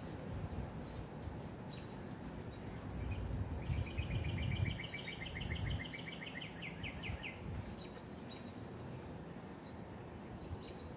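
A small bird's rapid trill, a run of evenly repeated short notes lasting about four seconds in the middle, over a low background rumble.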